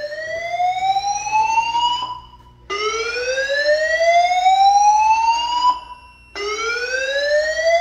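Fire alarm evacuation tone from a Silent Knight SK6820EVS voice system's speakers: a loud rising whoop that sweeps up in pitch over about three seconds. It breaks briefly and repeats, one whoop ending just after the start, another in the middle, and a third beginning near the end. This is the alarm signal that comes ahead of the recorded fire-alarm voice message.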